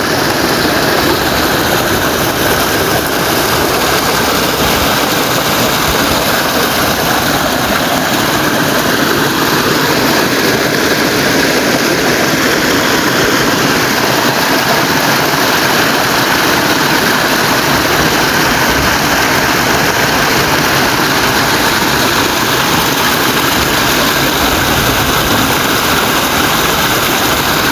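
Loud, steady rush of running water: heavy-rain runoff pouring along as a flood stream.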